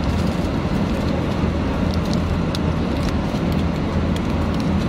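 Steady airliner cabin noise in flight: a low drone under an even rushing hiss. A few faint crinkles of a plastic snack wrapper being handled sit on top.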